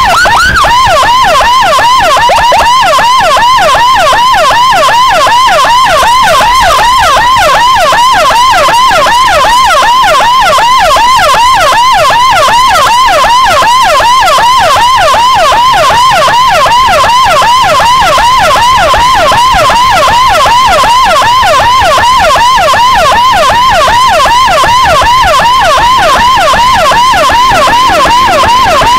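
Motorcycle escort's electronic siren (CJB 200E siren amplifier through a Toa YD100i speaker) sounding a rapid yelp. Its pitch sweeps up and down several times a second, loud and unbroken.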